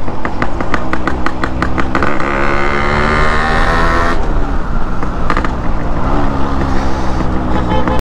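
Yamaha RX100's two-stroke single-cylinder engine running on the road, heard from the rider's seat over a steady low rumble. Its note climbs under throttle from about two seconds in, drops off sharply about four seconds in, then rises again near the end.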